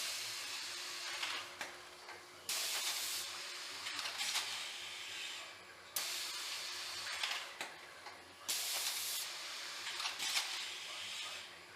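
M&R Gauntlet automatic screen printing press cycling: a repeated hissing of compressed air that jumps up sharply about every three seconds, with short mechanical clicks.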